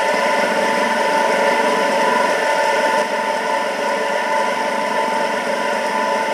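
Single-phase exhaust fan running steadily at speed: a constant motor hum with a clear tone over the rush of air through the blades. It is wired in reverse with its blades turned round, so it blows air back past the motor.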